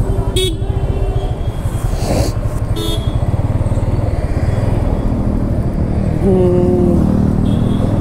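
Yamaha motorcycle riding through city traffic with a steady low engine and road rumble, while vehicle horns honk: a short beep at the start, a brief high beep about three seconds in, and a louder honk of under a second about six seconds in.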